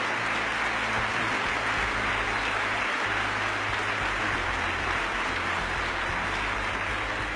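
A large audience giving a standing ovation: many people clapping at once in a dense, steady wash of applause.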